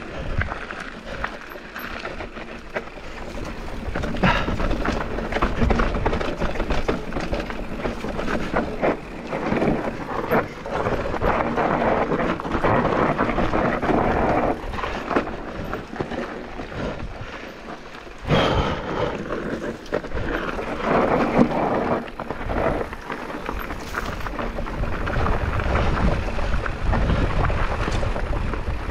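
Mountain bike descending a rough trail at speed: tyres rolling and skidding over dirt and rock, with the bike rattling and knocking over bumps and wind buffeting the microphone. The rumble is continuous, dipping briefly around a third and two thirds of the way through.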